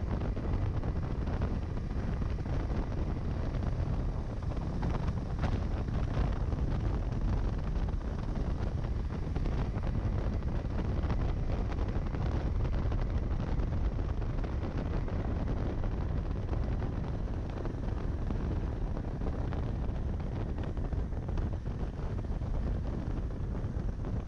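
Steady wind rush on the camera microphone of a KTM 390 Adventure motorcycle riding at speed, blended with the bike's engine and tyre noise as an unbroken low rumble.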